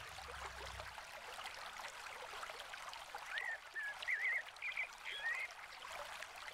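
Steady rush of flowing water. In the middle a bird gives a short run of quick warbling chirps.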